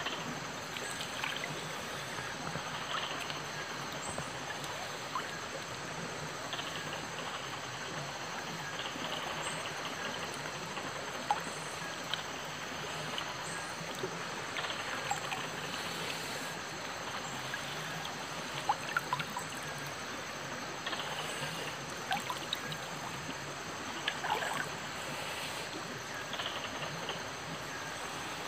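Water of a small forest stream trickling and splashing steadily, with a few brief sharper clicks scattered through.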